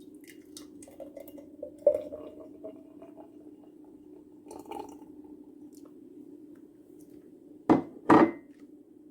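Glassware and dishes being handled: light clinks and taps over a steady low hum, then two loud sharp knocks about half a second apart near the end, each with a brief ring.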